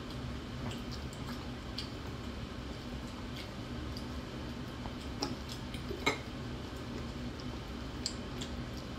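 Metal cutlery clicking and scraping against a bowl while someone eats, with a few sharp clinks about five and six seconds in, over a steady low hum.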